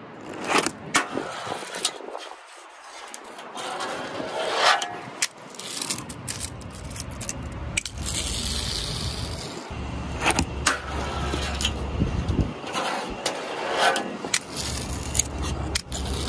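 Tech Deck fingerboard rolling and scraping on concrete, with many sharp clacks as the little board is popped, hits the ground and bangs against the ledge.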